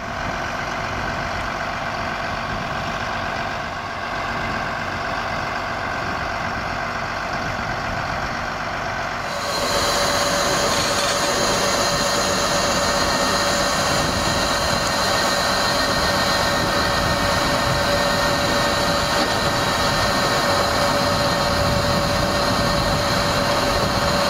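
Tractor engine running, driving a Hakki Pilke Easy 37 firewood processor hitched behind it. About a third of the way in, the sound steps up louder and a steady whine is added as the machine works.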